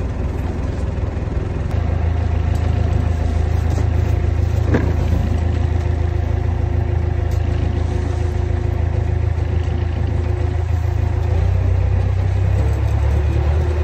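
Fishing boat's engine running with a steady low drone, getting a little louder about two seconds in.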